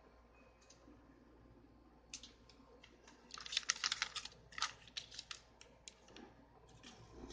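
Crumpled sheet of lined notebook paper crinkling and rustling as it is handled and pressed flat on a table: a run of quick crackles, thickest about three to four seconds in.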